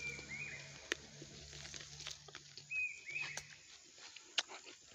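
Quiet outdoor background with a small bird chirping briefly twice, and a few soft mouth clicks from chewing fruit.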